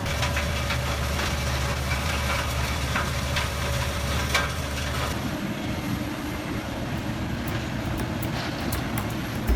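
Heavy shredding machinery running steadily with a deep hum, with scattered sharp cracks and knocks from material being broken up. About halfway through the hum changes to a rougher, lighter rumble.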